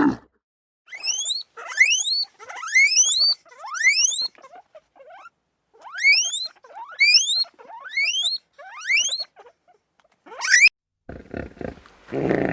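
Animal calls: about a dozen short, shrill whistles, each sweeping quickly upward in pitch, in two runs with a brief pause between them. A rougher, noisier sound follows near the end.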